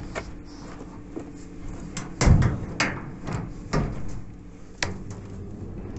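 Metal drying cabinet being shut and latched: a string of knocks and clatters, the loudest about two seconds in, followed by a sharp click near the end as a switch on its control panel is pressed.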